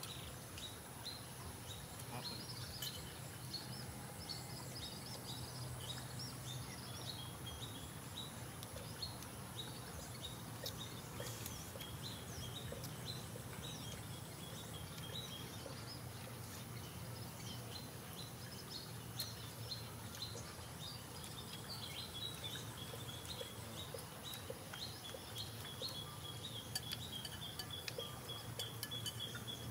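Wild birds chirping: many short, scattered chirps, with a quick repeated series of chirps near the end, over a steady low hum and a faint steady high tone.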